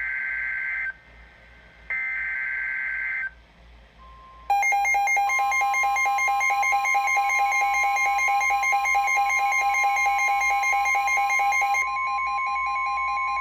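Emergency Alert System tones: two short bursts of the screechy digital SAME header data, then a steady single-pitch weather-radio alert tone joined by a loud, fast-pulsing buzzy alarm tone that sounds without a break.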